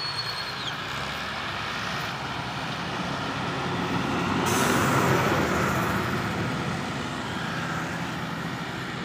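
Diesel engines of a John Deere 55 hp tractor and a Mahindra Arjun 555 tractor running under heavy load, hauling a trailer piled with sugarcane. The rumble swells louder about halfway through, then eases.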